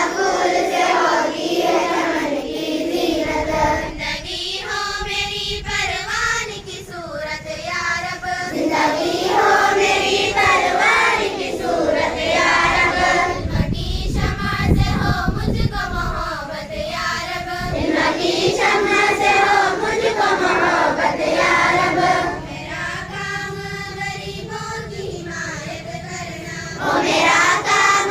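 A group of schoolchildren singing together in unison, a slow song with long held notes. A low rumble comes in about halfway through for a few seconds.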